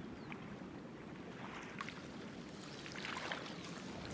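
Quiet, steady wash of lake water lapping at a rocky shore, with a few faint clicks in the second half.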